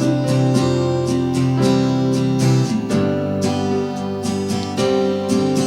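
Instrumental break in a worship song: acoustic guitar strummed in a steady rhythm over held low notes, with no singing.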